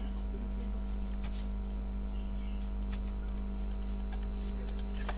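Steady electrical mains hum with a buzz of higher overtones, with a few faint clicks over it.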